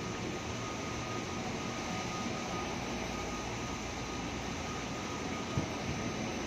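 Steady ambience of a KRL commuter rail station platform: a low rumble and hiss with a thin steady tone above it. One brief knock comes about five and a half seconds in.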